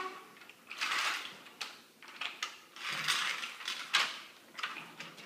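Children's footsteps and movement on a hard wooden floor: a few sharp taps and short hissy rustles.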